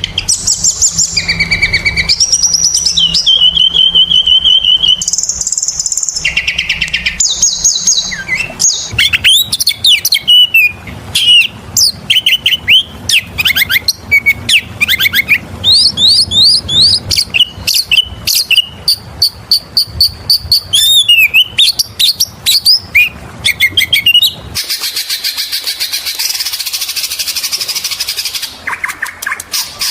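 Oriental magpie-robin (kacer) singing loudly and continuously: a varied run of clear whistles, sliding notes and quick trills. About 24 seconds in, the song changes to a fast, harsh, buzzy chatter.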